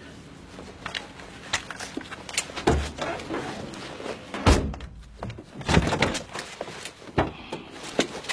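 A series of dull thumps and knocks, four or so spread out, the loudest about halfway through.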